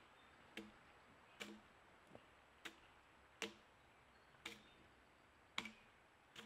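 Axe chopping into a fallen tree trunk: sharp wooden strikes, about eight of them, one roughly every second, one of them weaker.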